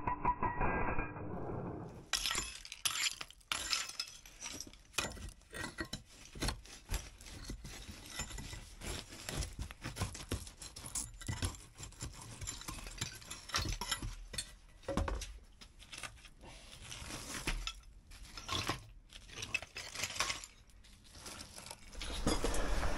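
A power breaker runs briefly, then stops about two seconds in. After that come shovel scrapes and many sharp irregular clinks and knocks as chunks of broken concrete floor and ceramic tile fragments are shovelled and tipped.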